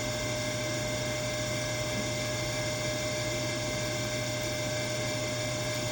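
Spindle of a Milltronics RH-20 CNC vertical mill running at a steady 3,000 RPM during a spindle test: an even whine and hum that holds one pitch.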